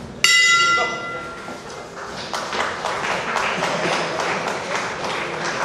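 Boxing ring bell struck once about a quarter second in, ringing out and fading over about a second and a half, marking the end of the round. Crowd noise in the hall follows.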